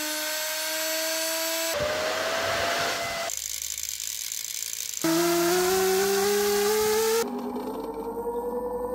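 Electric motors spinning fast on raised voltage, in quick cuts: an opened hard drive's spindle motor, a floppy drive's disk motor and a hoverboard hub motor among them. Each gives a steady whine that climbs slowly in pitch, and the sound changes abruptly every second or two.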